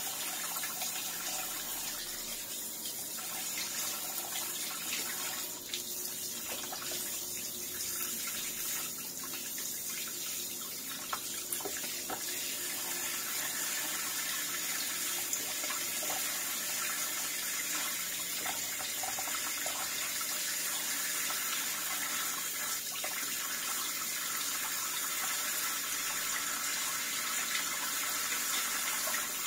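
Kitchen faucet running steadily, its stream splashing over plastic juicer parts being rinsed by hand, with a few light clicks of the parts being handled.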